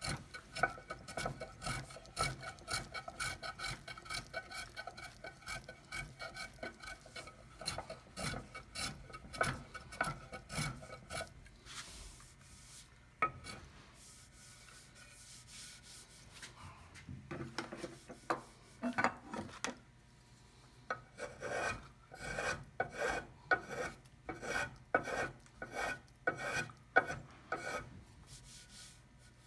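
Small bench plane shaving along the edge of a mahogany hull in quick repeated strokes, about two or three a second. The strokes stop for several seconds partway through, with only a few in between, then another run of similar strokes follows near the end.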